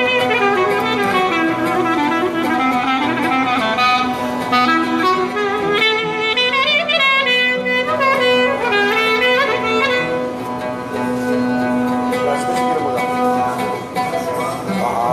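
Clarinet playing an ornamented melody full of slides and bends, accompanied by violin and oud, over a steady held low note.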